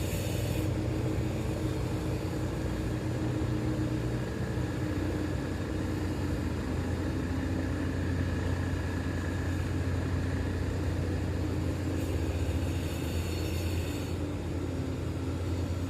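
Tugboat engine running steadily: a continuous low drone whose pitch shifts slightly about four seconds in.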